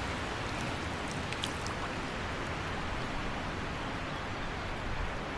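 Steady rushing wind noise, with a couple of faint ticks about a second and a half in.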